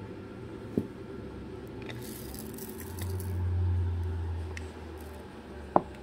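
Cockatoo handling its toys: a sharp click about a second in and a louder one near the end, with light rustling and a low rumble for a second or two midway.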